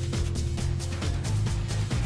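Background music with a steady beat over a held bass line.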